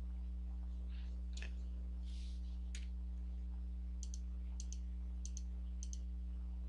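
Computer mouse button clicks: two single clicks, then a run of quick double-clicks about every half-second, over a steady low electrical hum.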